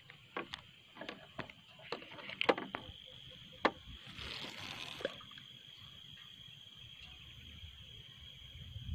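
Scattered light clicks and knocks of fishing tackle handled in a small boat while a baited line is cast, with a short hiss about four seconds in, over a steady high-pitched insect drone.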